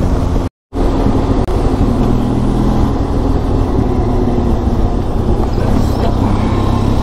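Benelli TRK 502X's parallel-twin engine running steadily as the motorcycle cruises along the road. The sound cuts out completely for a moment about half a second in, then resumes unchanged.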